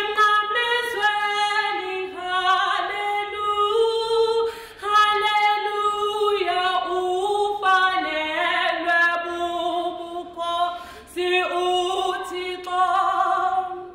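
A woman singing solo, unaccompanied, holding long notes in several phrases with brief breaks between them.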